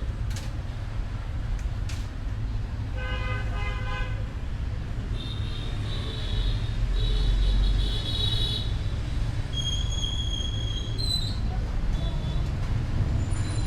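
Steady low rumble of road traffic with vehicle horns: one horn sounds for about a second about three seconds in, followed by thinner high-pitched tooting tones later.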